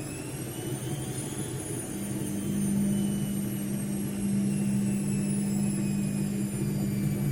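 ATLANT washing machine's drum motor running with a high whine that climbs until about a second and a half in, then slowly sinks, over a steady low hum.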